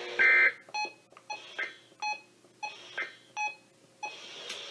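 A brief, loud burst of high digital data tones from a weather radio broadcast, then a series of about eight short electronic beeps, unevenly spaced, between spoken messages.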